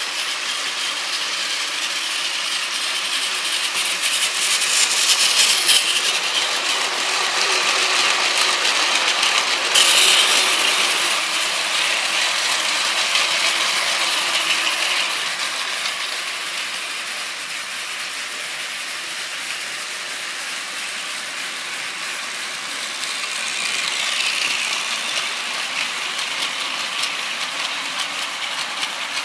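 Plarail battery-powered toy trains running on plastic track: the small motor and gearbox whirr and the wheels rattle along the track. The sound swells louder several times as a train passes close by.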